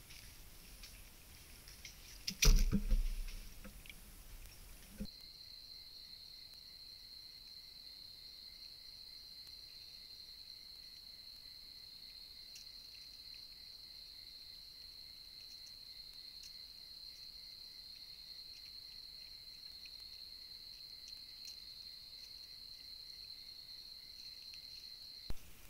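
A loud thump with rustling about two and a half seconds in. From about five seconds on, a steady high-pitched insect trill, cricket-like, runs unbroken and stops just before the end.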